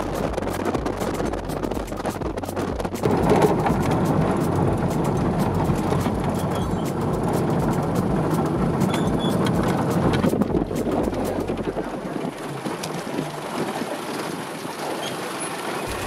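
A vehicle driving on a rough dirt road: steady engine and road noise with many small clicks and knocks of rattling. It grows louder about three seconds in, and loses most of its low rumble about twelve seconds in.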